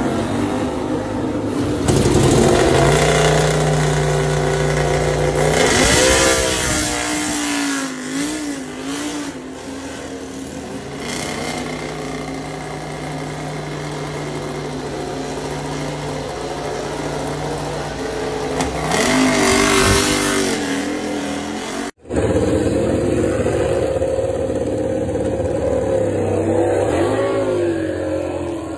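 MotoGP race bike engines running in the pit lane, the note held steady for stretches, with throttle blips that rise and fall about six seconds in and again around nineteen to twenty seconds. The sound cuts abruptly about twenty-two seconds in to another engine running.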